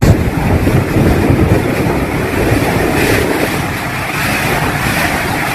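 Loud steady rushing and rumbling of typhoon storm noise, strong wind and water.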